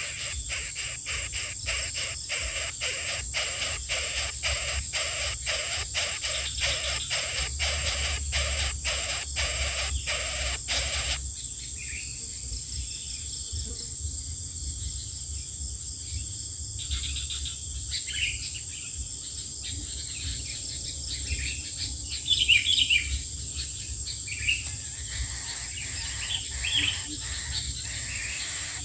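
Background music with a shaker-like beat of about two strikes a second, which stops abruptly about a third of the way in. After it, a steady high insect buzz continues, with scattered short, high bird chirps in the second half.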